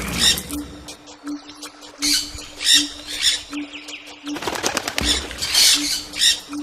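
Bird wings flapping in several short bursts about a second apart. Under them a short low tone repeats about every three quarters of a second.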